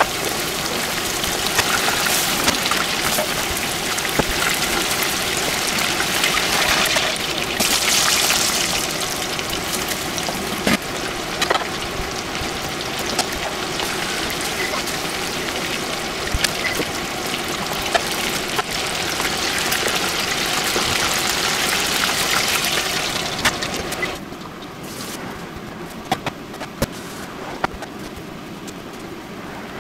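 Chicken pieces deep-frying in a pot of hot oil: a steady, dense sizzle and crackle. A little before the end the frying sound cuts off, leaving a quieter background with a few light clicks.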